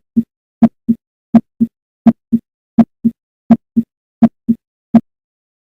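Heart sounds at the tricuspid auscultation focus: a regular lub-dub, the first and second heart sounds as paired short low thumps, about 80 beats a minute, stopping about five seconds in.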